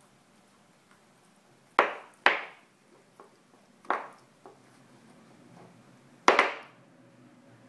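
Hard hoof chew knocking against a wooden floor as a puppy gnaws and shifts it: two sharp knocks close together about two seconds in, another near four seconds, and the loudest just past six seconds, with a couple of lighter taps between.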